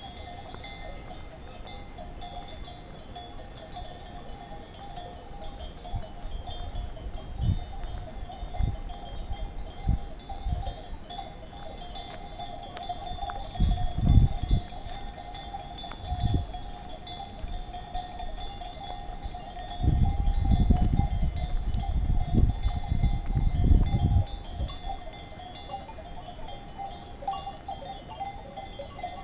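Many small bells clanking steadily, of the kind hung on grazing livestock. Several low rumbles come and go, loudest about twenty seconds in.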